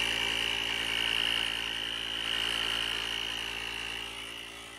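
Portable digital tire inflator (small air compressor) running steadily, pumping up the spare tire, with a hum and a high whine; it grows fainter near the end.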